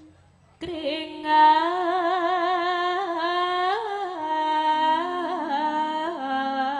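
A woman's voice singing a slow, ornamented Javanese vocal line without accompaniment, in the manner of a sindhen. It enters just under a second in and holds long notes with a wavering vibrato and slides between pitches.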